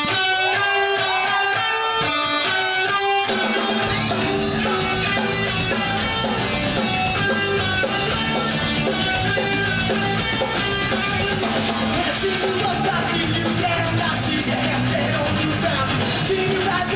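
Punk rock band starting a song live: an electric guitar plays a riff alone for about three seconds, then drums and bass come in and the full band plays.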